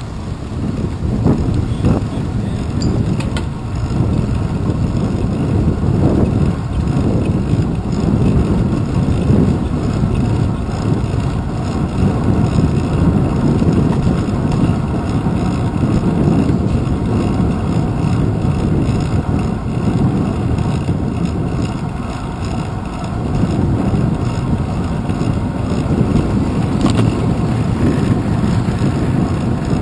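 Steady low rumble of wind and road vibration, picked up by a handlebar-mounted GoPro camera on a bicycle riding along a city street.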